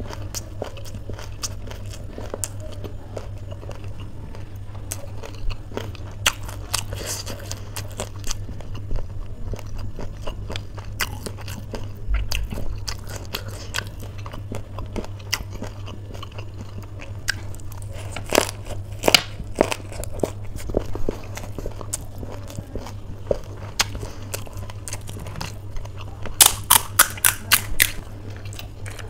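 Close-up chewing and crunching of a lettuce wrap filled with crunchy Wai Wai noodle chaat, with many small crisp crunches and a quick run of sharper, louder crunches near the end. A low steady hum runs underneath.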